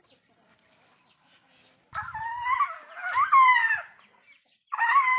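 Baby Asian elephant crying out in two long, loud, wavering calls, the first about two seconds in and the second starting near the end. The calls are its hunger cries, begging for sugarcane.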